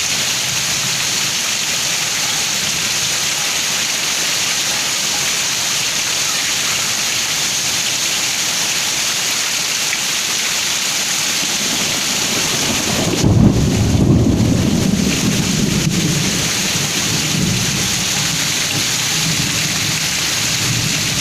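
Heavy downpour pouring steadily, with a thunderclap breaking about two-thirds of the way in and rumbling away over a few seconds.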